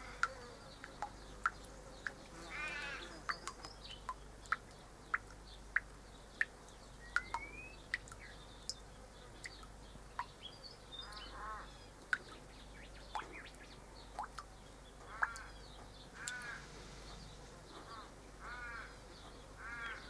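Water dripping from a garden tap into a stone basin, single sharp drips at an uneven pace of about one or two a second. Over the drips, birds call several times with short bursts of quickly repeated notes.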